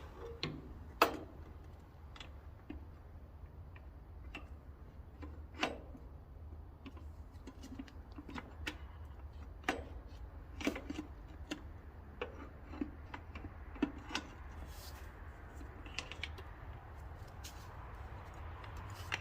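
Scattered light clicks and knocks of hand tools and parts being handled while refitting a tractor cover, over a steady low hum.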